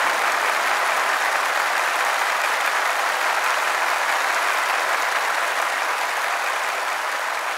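Large audience applauding steadily in a big hall, easing off slightly near the end.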